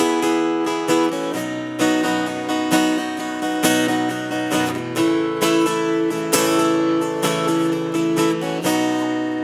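Acoustic guitar strummed in a steady rhythm, accented about once a second, changing chord three times, with no singing.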